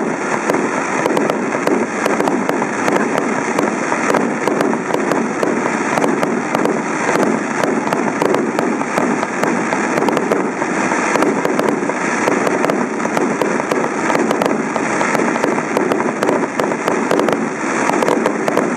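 Fireworks going off without a pause: a dense, continuous crackle of many small sharp pops over a steady rush of noise.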